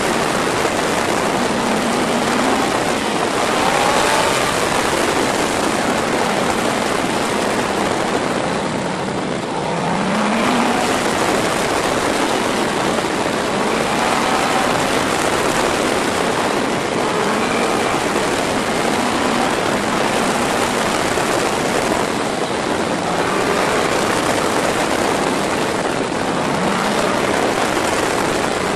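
Wind rushing over a motorcycle-mounted camera on a Yamaha inline-four sport bike, with the engine note rising several times under acceleration and easing briefly about a third of the way in.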